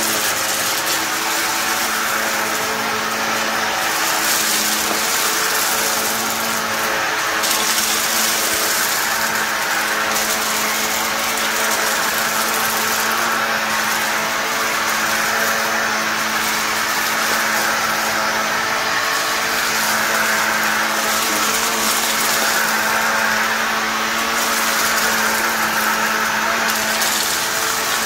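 Vacuum cleaner running steadily: a constant motor hum under rushing air, the hiss swelling and easing every few seconds.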